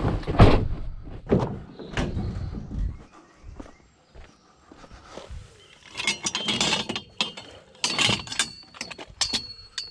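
A van door shuts with a thunk, followed by footsteps. From about six seconds in, a folded metal tube frame clatters and rattles as it is handled, and a thin metallic ring sounds near the end.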